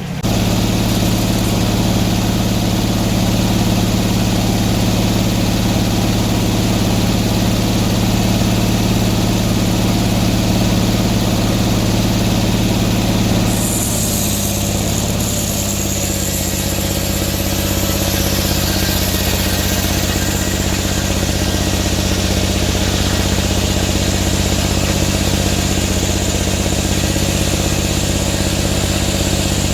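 Sawmill engine run up to speed and running steadily. About halfway through, its note changes and a high whine joins it as the blade cuts a slab off a black oak log.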